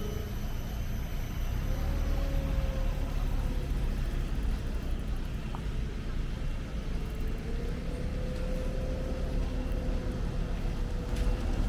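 Steady low rumble of road traffic, with a faint engine tone rising and falling slowly through it.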